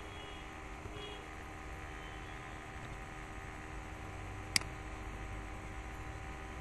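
Steady electrical hum and hiss of the recording setup, with one sharp click about four and a half seconds in: a mouse click on a Submit button.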